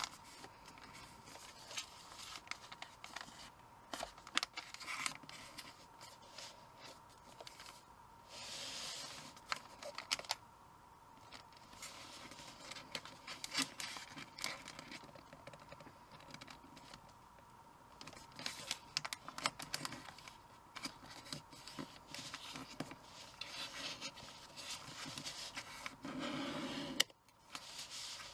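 A sheet of origami paper being folded by hand: irregular rustling and sliding, with crisp scratchy strokes as fingers and nails press the creases.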